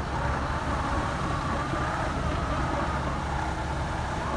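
Heavy truck engine running steadily during the towing of a truck-mounted steam unit (PPU) across a stream.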